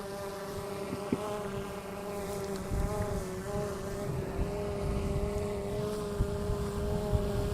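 Autel Evo quadcopter's propellers whining steadily, the pitch wavering slightly as it flies, with wind rumble on the microphone.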